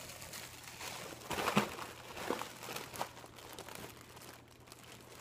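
Mylar foil balloon crinkling as it is handled, with the loudest burst of crinkling about a second and a half in.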